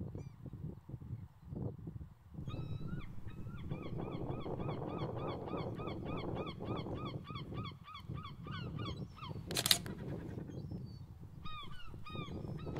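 A flock of geese honking: dense overlapping calls start about two and a half seconds in and keep up for several seconds before thinning out. A single sharp click comes about ten seconds in, and a few more honks follow near the end, over a low steady rumble.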